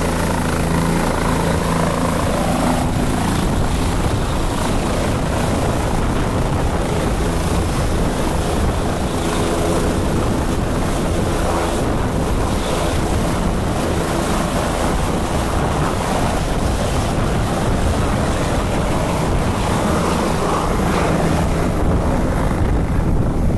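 Helicopter taking off and flying away: loud, continuous rotor and turbine engine noise, with a steady low hum most clearly heard at the start and again near the end.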